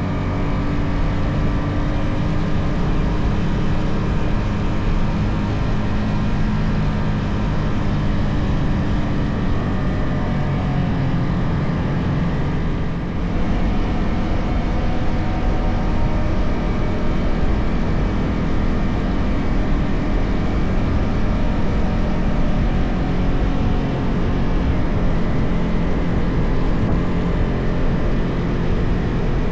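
Stock Yamaha XSR 155 single-cylinder engine and exhaust running steadily while riding, with a brief dip in level about halfway through.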